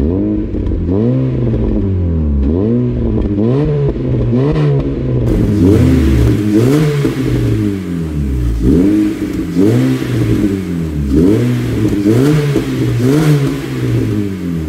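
A 2012 Honda City's four-cylinder engine revved again and again in quick blips, about one a second, through a DRIFT XAUST aftermarket catback exhaust with triple tips.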